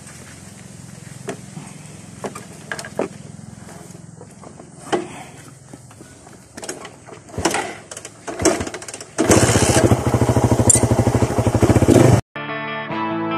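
Small motorcycle engine idling quietly amid scattered clicks and plastic-bag rustling. About nine seconds in, the engine is revved loudly for about three seconds, then cuts off suddenly.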